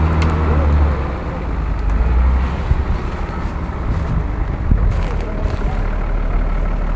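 Engine of a lifted off-road SUV on mud tyres running under load as it drives off through mud. The note is steady for about a second, then dips and turns rougher and less even.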